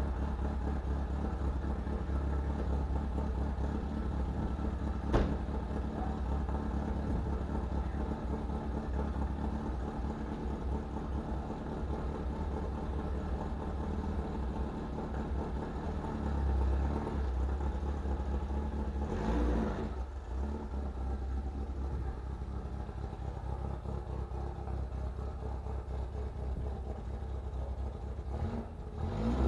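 1964 VW Beetle's air-cooled flat-four engine running steadily, with a sharp click about five seconds in and a brief change in engine pitch about twenty seconds in.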